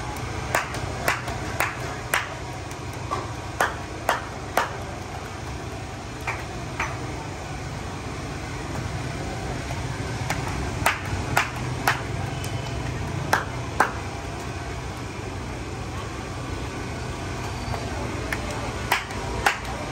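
Sharp metallic clinks with a short ring, in irregular clusters of two to four, over a steady hum of street noise: metal utensils striking steel pots or plates.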